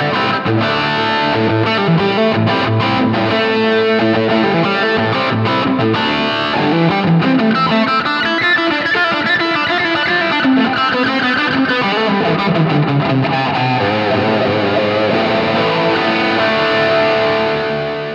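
Instrumental theme music led by a distorted electric guitar, which starts to fade out near the end.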